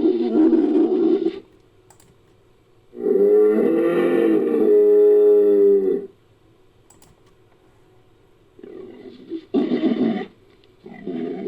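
Designed creature calls for a giant tapir, layered from bull and Hercules beetle recordings. There is a call at the start, then a long, steady, pitched call lasting about three seconds, then quieter rough calls and another call near the end.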